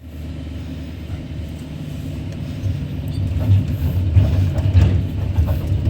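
Kobelco SK200-10 excavator's diesel engine running, heard from inside the operator's cab as a low, steady drone that grows louder about two and a half seconds in, with a few light knocks.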